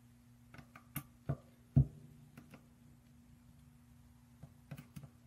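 Scattered small clicks and taps of a precision screwdriver and small metal screws against the metal resin-vat frame as the film-clamping screws are tightened one after another, the sharpest tap about two seconds in and a quick cluster near the end. A faint steady hum runs underneath.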